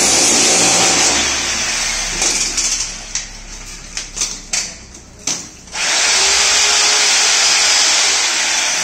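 Handheld power tool cutting a channel into a plastered wall. It runs steadily, then in short stop-start bursts through the middle, then steadily again from about six seconds in.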